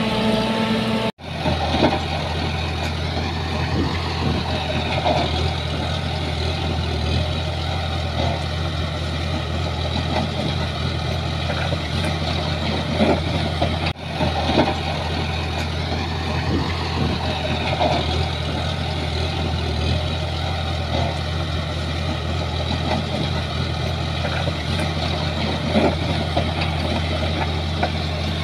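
Shantui bulldozer's diesel engine running steadily, a low drone with scattered clanks and knocks. The sound cuts out briefly about a second in and again about halfway through.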